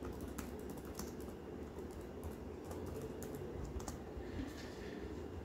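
Keystrokes on a computer keyboard typing a short phrase, in irregular clicks.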